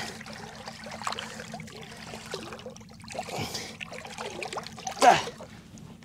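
Sea water splashing and trickling around a snapper held in the water to revive it before release, with one louder, brief splash-like burst about five seconds in.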